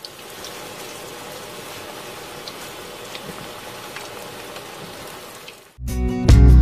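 Pork cutlet deep-frying in hot oil: a steady sizzle with scattered small pops. Music with guitar comes back in near the end.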